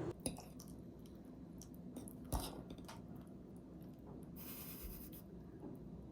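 Someone chewing food at close range, with a few sharp clicks, the loudest about two and a half seconds in, and a brief high hiss a little after four seconds.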